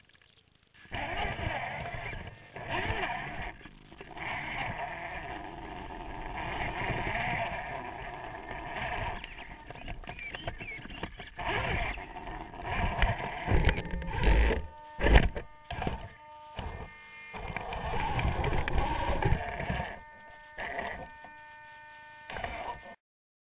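Onboard sound of an electric 2.2-scale RC rock crawler (ARC chassis, twin Tekin FXR speed controls) crawling over rocks. Its motors whine with steady tones, and the chassis and tyres knock and bump against the stones, with the heaviest thumps about two-thirds of the way through. The sound stops abruptly shortly before the end.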